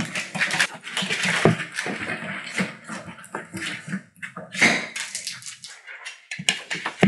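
Four-week-old collie puppies playing on a hard floor: an irregular run of scratches, taps and scuffles from paws and toys, with small puppy sounds among them. The sounds thin out after about four seconds.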